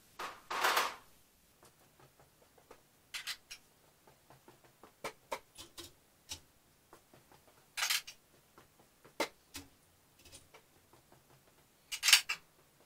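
Scattered light clicks, taps and short rustling or scraping noises of someone moving about and handling tools and parts. Louder bursts come about half a second in, near eight seconds and near twelve seconds.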